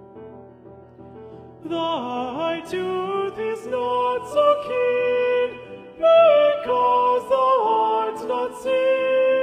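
Music: soft accompaniment, then a solo voice comes in about two seconds in, singing long held notes that slide between pitches.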